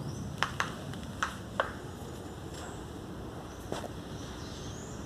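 Five short, sharp clicks or taps: two close together about half a second in, two more around a second and a half, and one near four seconds. Faint high chirps sound in the background.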